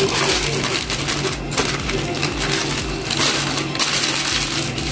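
Butter paper crinkling and rustling under the hands as a shawarma is rolled up tightly in it.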